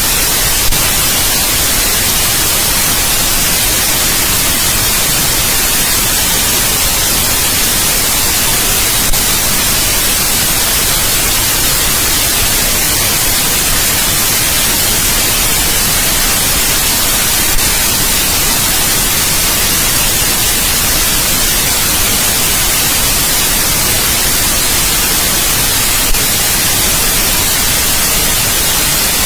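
Steady white noise, an even hiss spread across all pitches and brightest at the top. A faint click comes about every eight and a half seconds.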